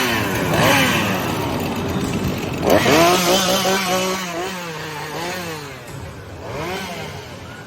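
Chainsaw engine revving up and down in repeated bursts, loudest when it revs hard about three seconds in, then falling back and fading toward the end.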